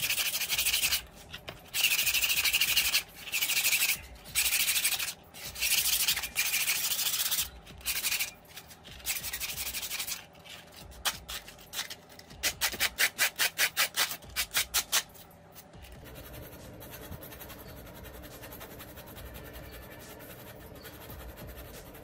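Rusty steel wire guard of an old table fan being scrubbed by hand to strip the rust. The first ten seconds are long hissing strokes about a second each; about twelve seconds in comes a quick run of short strokes, about four a second, before it turns faint.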